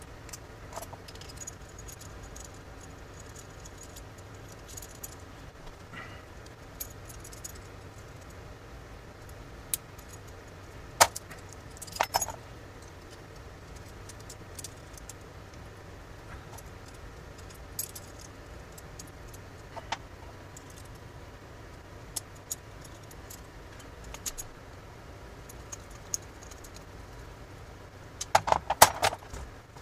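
Small steel pistol-lock parts and hand tools clicking and clinking against each other as an antique pistol's lock is worked on and reassembled: scattered sharp metallic clicks, with the loudest run of clinks near the end.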